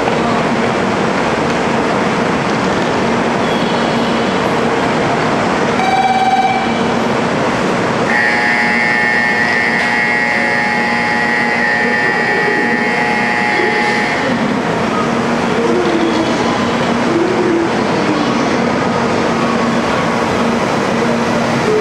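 Shinkansen high-speed train running, a steady loud rumble of wheels and air, with a high whine of several tones coming in about eight seconds in and fading out some six seconds later.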